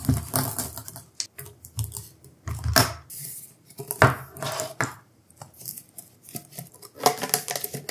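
Handling noise from a ribbed CPAP hose and its 22 mm rubber connectors being pulled free and coiled up: scattered clicks and knocks of plastic with brief rustles and rubbing.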